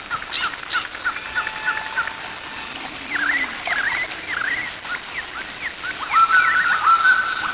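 Birds chirping: many short calls repeated over and over, with a louder run of chirps from about six seconds in.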